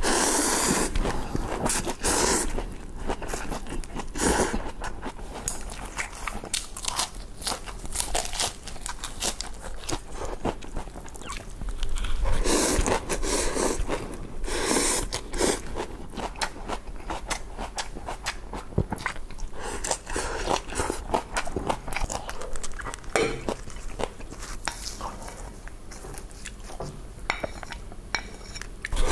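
Close-miked eating of instant noodles: loud slurps of noodles at the start and again about halfway, between stretches of chewing and crunchy bites.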